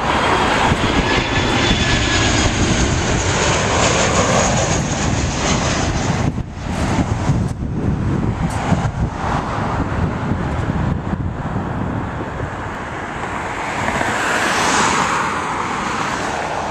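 American Airlines Boeing 737's twin jet engines passing low overhead on landing approach and touching down: a continuous jet roar with a faint high whine that slides down in pitch as it passes. The roar swells again briefly about three-quarters of the way through.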